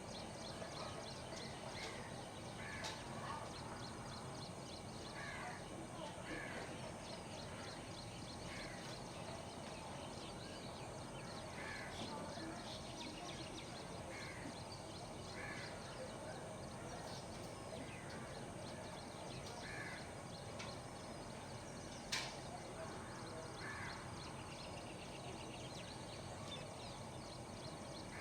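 Morning birdsong: one bird gives short repeated calls every second or two over a chorus of small birds chirping, with a steady high hiss underneath. One sharp click about 22 seconds in.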